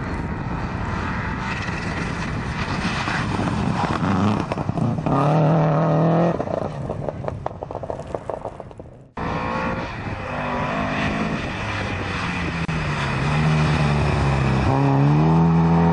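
Rally cars at full throttle. A Subaru Impreza's engine revs up as it approaches and passes, then gives a rapid run of crackles. After a cut about nine seconds in, a second rally car's engine revs rise to the loudest point near the end as it passes.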